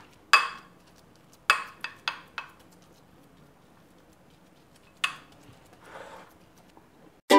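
Metal spoon clinking and scraping against a glass baking dish while pressing coconut barfi mixture flat: a scatter of sharp clinks, four in quick succession about a second and a half in, and a softer scrape near the end. Ukulele music starts right at the close.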